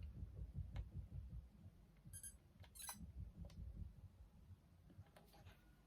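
Near silence with faint handling of a Sony Mavica floppy-disk camera: soft low bumps, a few small clicks and a short high electronic beep about two seconds in.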